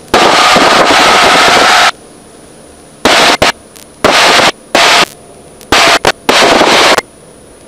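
Cockpit intercom in a Cessna 150 gating open and shut on engine and wind noise: a loud rush of noise for the first two seconds, then several short bursts that cut in and out abruptly, with a faint high steady tone in the gaps.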